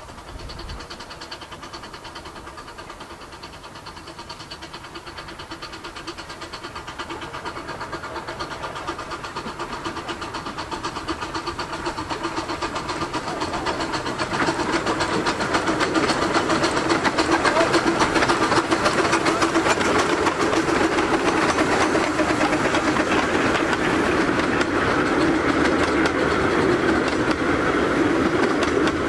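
Two steam locomotives double-heading a 15-inch gauge passenger train, the sound growing steadily louder as the train approaches and then the carriages rattling over the rail joints as they pass close by.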